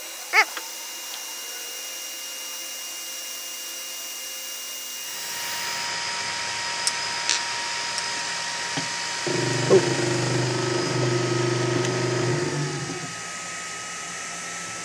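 3D printer stepper motors whining as the printer auto-homes. They grow louder about five seconds in, with a few sharp clicks. From about nine to thirteen seconds a louder, lower buzz as the Z motors drive the nozzle down into the glass bed without the BLtouch probe stopping it, the crash that cracks the bed, which the owner puts down to the probe servo or end-stop setup.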